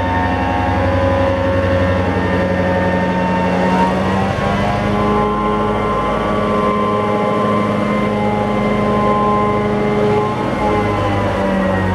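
NOHAB MY-class diesel locomotive's EMD two-stroke V16 engine running as the locomotive moves slowly past. The engine note is loud and steady, and it shifts in pitch about four seconds in.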